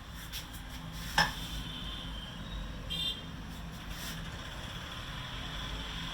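Hands working a head massage: one sharp smack about a second in over a steady low hum, with a short high chirp about three seconds in.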